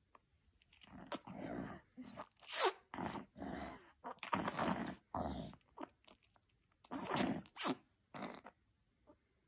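A baby sucking on a pacifier, making short bursts of sucking and breathy noises, with a brief falling whine about two and a half seconds in.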